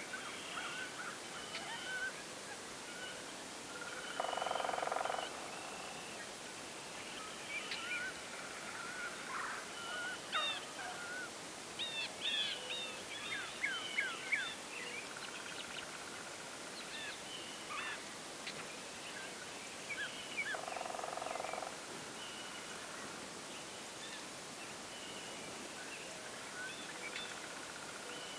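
Wild turkey gobblers in strut, with two rattling calls about a second long, one about four seconds in and another about sixteen seconds later, most likely gobbles. Songbirds chirp throughout, busiest in the middle.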